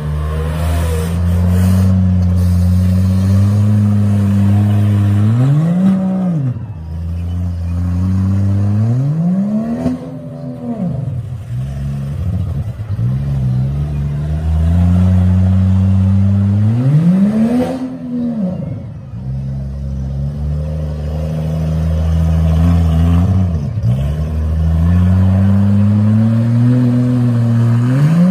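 Demolition derby mini trucks' engines running hard in the mud, revving up and falling back about five times.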